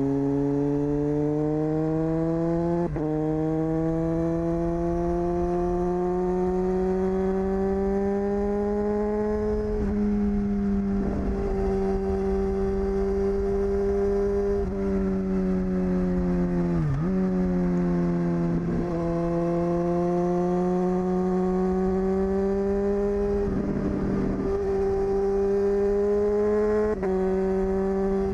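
Honda CBR954RR's inline-four engine running through an open exhaust with the dB killer removed. The engine note climbs slowly and changes pitch abruptly at the gear shifts, a handful of times, with one quick dip and recovery midway.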